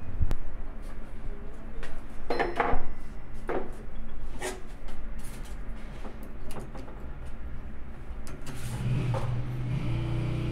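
Irregular metal clicks, clinks and knocks of hand work on a CV joint and its rubber boot, held in a bench vise and worked with pliers, with the loudest clatter a couple of seconds in. About two thirds of the way through, a steady engine hum comes in and keeps on.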